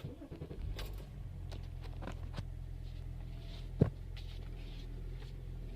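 The Range Rover's BMW M57 straight-six diesel running steadily, a low even hum that comes up about half a second in. Light clicks on top, with one sharp loud click about four seconds in.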